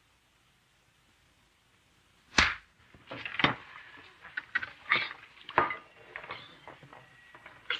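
A single sharp knock about two seconds in, then a run of lighter clinks and knocks of plates, a bowl and cutlery being handled on a table.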